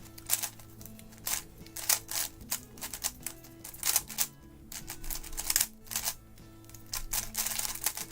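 Fast, irregular clicking and clacking of a GAN 11 M magnetic speedcube being turned in a solve. Background music plays underneath.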